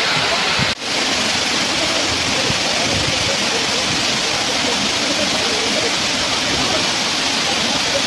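Waterfall cascading over a rock face into a pool: a loud, steady rush of water. It breaks off for an instant just under a second in.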